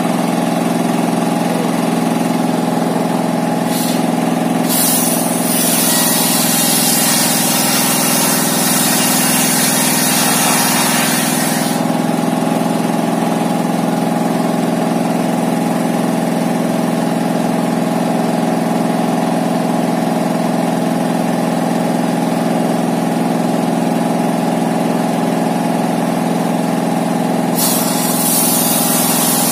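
Homemade table circular saw driven by a diesel engine, running with a steady hum. From about five seconds in to about twelve the blade cuts through a wooden plank with a loud, high-pitched rasp, and another cut begins near the end.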